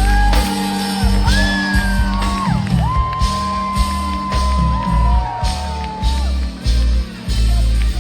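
Live reggae band playing loudly with a heavy pulsing bass line, heard from within the crowd, with long high held tones and scattered crowd whoops and shouts.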